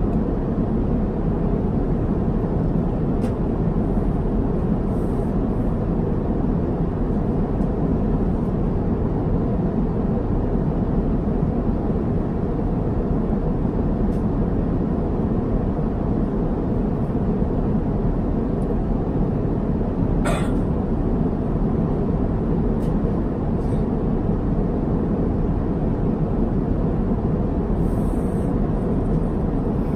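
Steady in-flight cabin noise of an Airbus A350-900: the deep, even rush of airflow and engines heard from a seat inside the cabin. One brief click comes about two-thirds of the way through.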